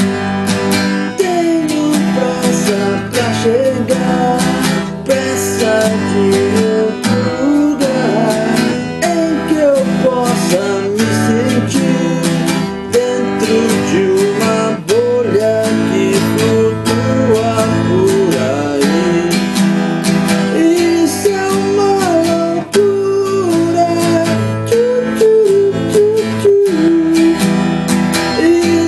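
Band music: strummed acoustic guitar with a bending lead melody over a steady beat.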